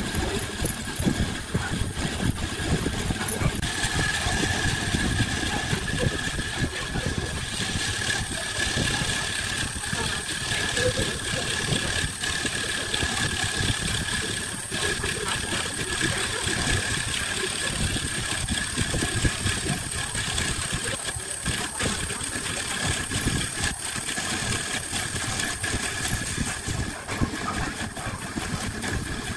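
Wood lathe running with a laminated blank spinning, a steady motor whine under it, while a bit in a drill chuck bores into the end of the wood with an uneven rough cutting noise. The whine grows stronger about four seconds in.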